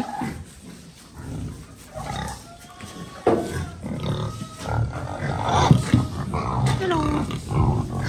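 Several pigs grunting, with a few short squeals, as they crowd and jostle for feed; the noise picks up from about three seconds in.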